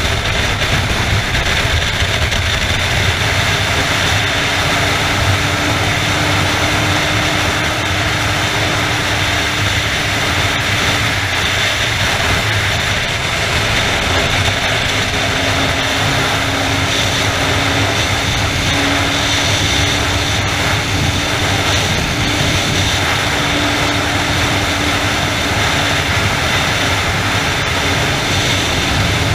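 Sport motorcycle cruising at steady highway speed: a continuous engine drone under heavy wind rush, with the engine tone drifting slightly as the speed changes.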